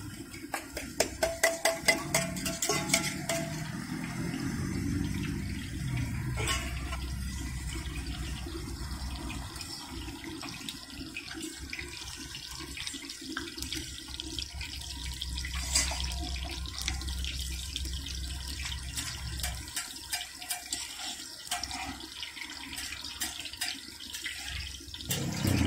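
Hot oil sizzling and crackling under a martabak telor frying on a large flat iron griddle, with a fast run of sharp crackles in the first few seconds and scattered pops after.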